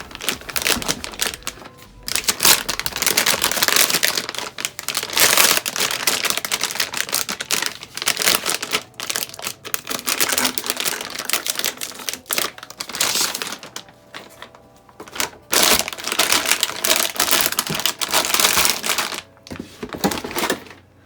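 Plastic packaging crinkling and rustling as a graphics card is pulled out of its wrapping, in several long spells with short pauses between them.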